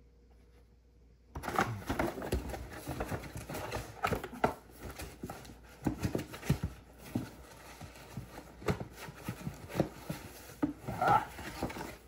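About a second of near silence, then a run of small irregular clicks, taps and knocks over light rustling: hands handling the NAS's plastic drive-tray parts and its cardboard and paper packaging.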